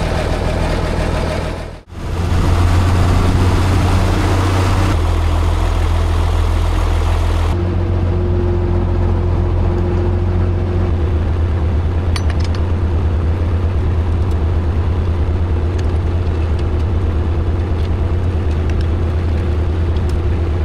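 John Deere tractor engine running steadily with a deep hum. The sound drops out briefly about two seconds in and changes abruptly twice more, as if cut between shots.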